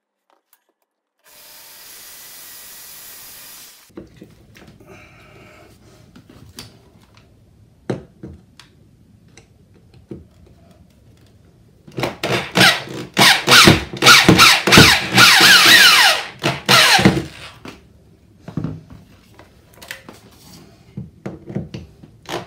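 Corded electric drill working into the bottom of a wooden door frame, its motor running in several short bursts for about five seconds from roughly twelve seconds in, speeding up and slowing between bursts. Scattered light knocks and handling clicks come before and after.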